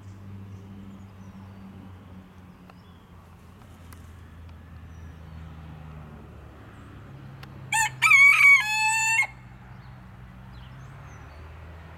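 A rooster crowing once, about two-thirds of the way in: a short first note, then a longer call that steps down in pitch and holds, lasting about a second and a half.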